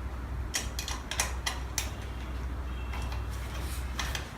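Irregular light clicks and ticks of a tool and metal screws as the display mount's screws are tightened on a 3D printer frame, over a steady low hum.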